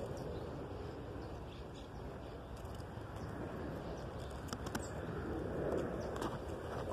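Outdoor background noise: a steady low rush that swells near the end, with a few short, faint high clicks or chirps about two-thirds of the way in.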